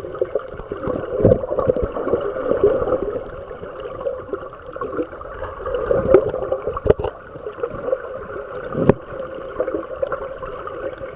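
River water gurgling and flowing, with a couple of sharp knocks late on.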